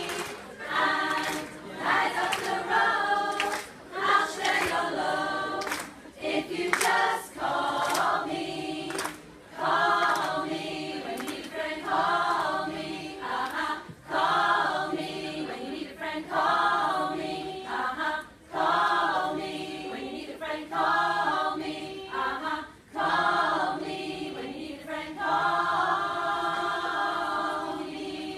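A large group of mostly women singing together as a choir, in short phrases every couple of seconds, ending on a longer held note near the end.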